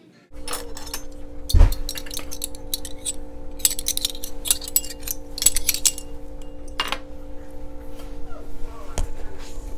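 Metal measuring spoons jingling and clinking against each other on their ring as a teaspoon of chili powder is measured out, with a heavier knock about a second and a half in and another near the end. A steady hum runs underneath.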